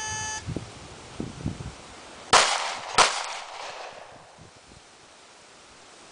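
A short electronic beep, then two pistol shots about two-thirds of a second apart, a little over two seconds in.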